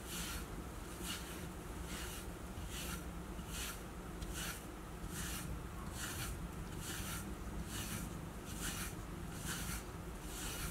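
Pet brush stroked repeatedly through a cat's fur, a regular run of short brushing strokes a little under two a second.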